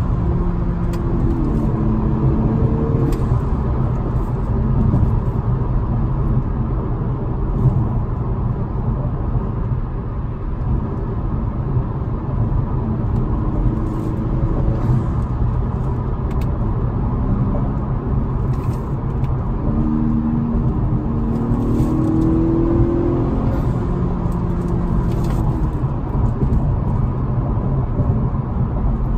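Honda Accord 2.0T's turbocharged four-cylinder engine and road noise, heard from inside the cabin while driving at speed. A steady low rumble runs throughout, and the engine note rises and eases a few times.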